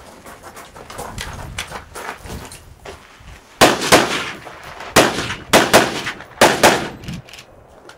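A string of about seven gunshots fired close by in quick succession, unevenly spaced, after a few fainter pops in the first seconds.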